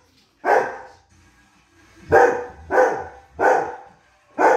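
Dalmatian barking territorially: one bark, a pause, then four more barks in a steady run.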